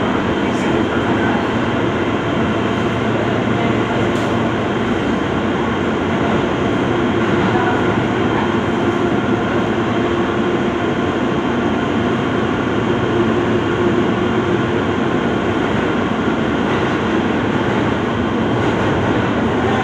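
R160 subway car with Alstom propulsion running at speed through a tunnel, heard from inside the car: a steady, loud noise of wheels on rail and running gear, with a faint steady tone from the traction motors.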